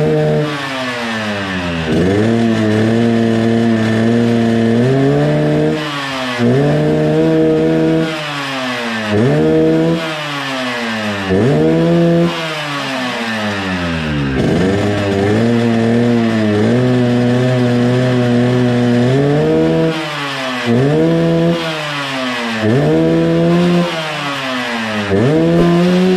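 Yamaha RX-King two-stroke single, tuned for the 'ngorok' (snoring) exhaust note, revved again and again: each time the pitch climbs, holds at high revs for one to four seconds, then drops back, about eight times.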